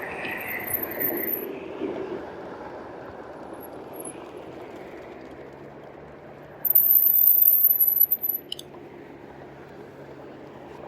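Riding noise of a 2018 RadRover electric fat-tire bike in a strong headwind: wind rushing over the microphone along with tyre noise, and a low steady hum from about five seconds in. A brief high-pitched squeal comes at the start, and a louder one about seven seconds in lasts a second and a half.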